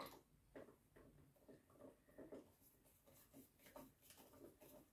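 Faint, irregular small clicks and scrapes of a hand screwdriver turning a screw into the hose reel of a Nilfisk Core 140 pressure washer, heard close to near silence.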